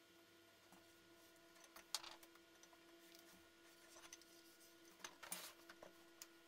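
Near silence: room tone with a faint steady hum and a few soft taps and rustles, the clearest about two seconds in and just past five seconds, from a cordless circular saw and tape being handled and set down on an aluminium guide rail.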